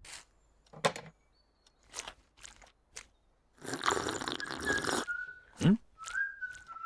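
A few soft knocks, then a loud drawn-out slurp from a mug lasting over a second, followed by short high whistle-like tones and a quick falling sound.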